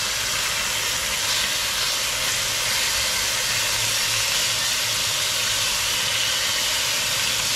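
Pork shoulder steaks searing in hot oil in a pot over high heat, a steady sizzle, just turned to brown the second side.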